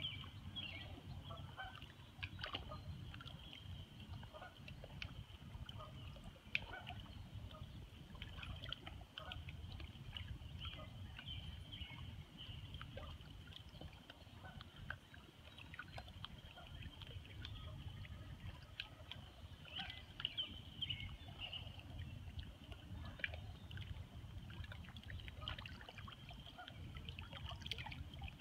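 Gentle river water lapping and trickling against shoreline rocks in small irregular splashes, over a steady low rumble, with faint high chirping throughout.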